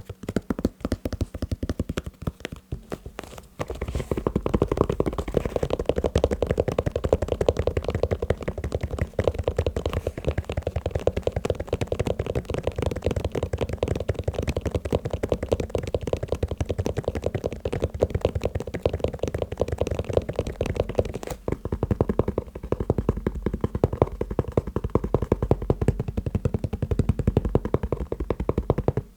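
Fast tapping on a shoe: a dense, unbroken run of quick taps that take on a fuller, lower body about three and a half seconds in.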